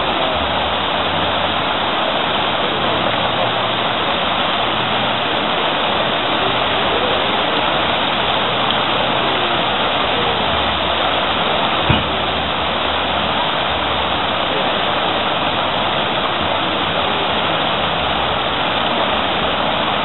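Fountain jets splashing steadily into a stone basin, a continuous even rush of falling water. A single sharp knock about twelve seconds in.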